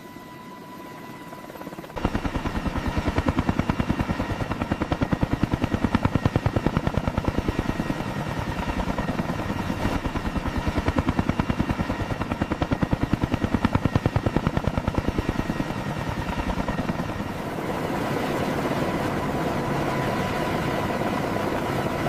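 CH-53K King Stallion heavy helicopter's turboshaft engines and rotor running up after engine start. A steady turbine whine comes first. About two seconds in, the rapid, even chop of the rotor blades sets in loudly, with the high whine continuing over it. The chop smooths into a steadier roar in the last few seconds.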